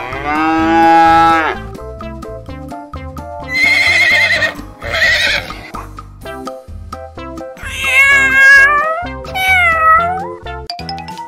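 A string of five animal calls, one after another with short gaps, over background music with a steady beat. The first is a long, steady call; the later ones waver or bend in pitch. Near the end a rising whistle glide sounds.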